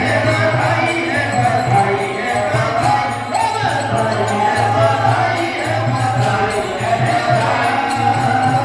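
Devotional music with singing over a steady low drone.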